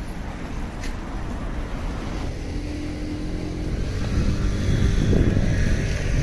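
Road traffic: motor vehicles running close by, the rumble growing louder in the second half as one draws nearer.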